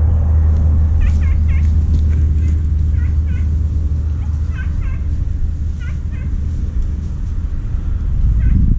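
Podengo hunting dogs giving tongue: high, short yelps in quick clusters of two or three, repeated every second or so, over a loud steady low rumble.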